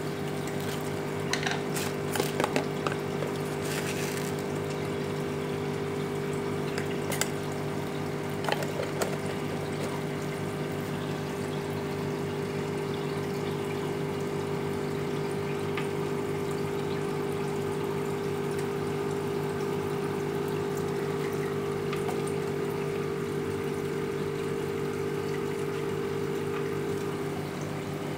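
Aquarium aeration: a pump humming steadily with water bubbling from the air stream, and a few short clicks in the first nine seconds.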